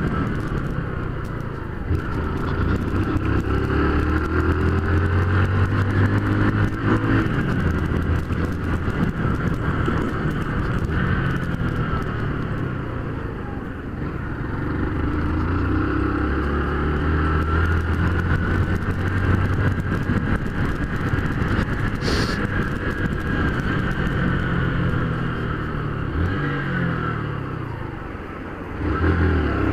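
Honda CG 150 Fan motorcycle's single-cylinder four-stroke engine running under way, rising in pitch through several accelerations and dropping back as the throttle closes between them.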